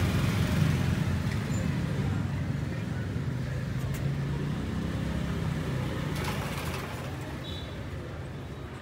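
Low, steady rumble of motor traffic, slowly fading away.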